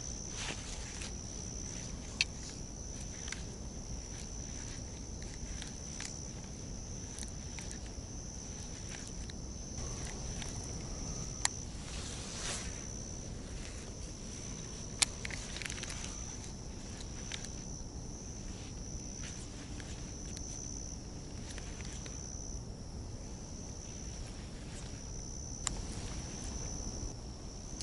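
A steady, high-pitched chorus of autumn insects chirring without a break. A few sharp clicks stand out above it, four times.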